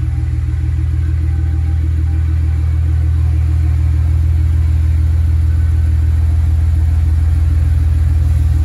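Pickup truck's engine running steadily with a low rumble, growing a little louder over the first few seconds.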